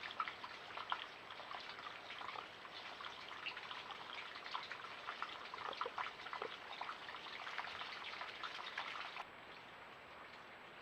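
Small mountain creek trickling and babbling over rocks, full of small splashing plinks. About nine seconds in the sound drops suddenly to a much quieter, softer hiss.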